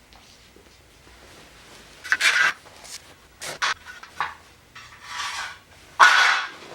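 Workshop work noises: a handful of short, irregular scraping and rubbing strokes on wood, the loudest about two seconds in and just before the end.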